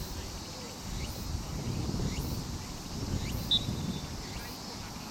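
Wind buffeting the microphone as a low rumble. Behind it, short rising chirps repeat about once a second, and a single brief high peep comes about three and a half seconds in.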